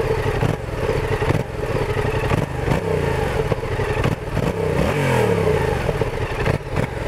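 Yamaha XSR 700's parallel-twin engine idling through its stock exhaust. The engine is revved up and back down twice, about three and five seconds in.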